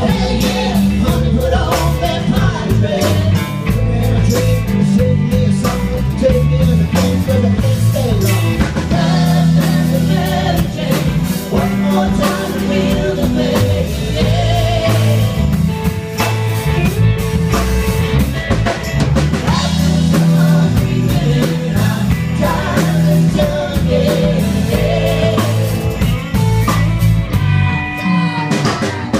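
Live rock band playing a song: a woman singing lead over two electric guitars, an electric bass guitar and a Tama drum kit.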